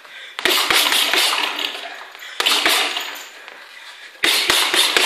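Boxing gloves striking a floor-to-ceiling ball: three quick flurries of sharp slaps about two seconds apart, each several hits as the ball snaps back on its elastic cords.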